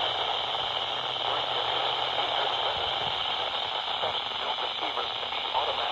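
Weather radio receiver on a weak station: steady static hiss, with a faint, garbled voice broadcast just showing through the noise.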